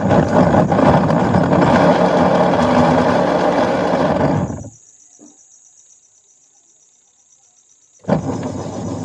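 Washing machine running with a loud, rough rumbling noise, the fault the machine is being checked for. The noise stops about 4.7 s in and, after a pause of about three seconds, starts again abruptly near the end.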